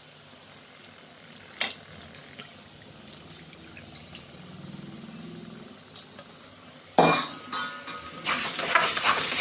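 Milk poured into a kadhai of cooked pumpkin, a faint filling sound, then about seven seconds in a loud clatter of metal cookware followed by clinking and scraping of a spoon in the pan.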